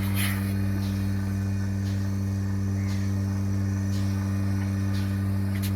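Milking machine running: a steady electric hum from its vacuum pump motor, with faint clicks about once a second.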